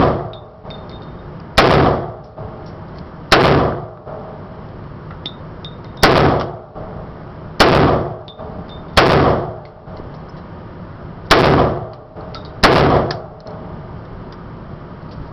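Short-barrelled AR-15 rifle (7.5-inch barrel) fired one shot at a time, about eight sharp shots spaced one to three seconds apart, each followed by a brief echo.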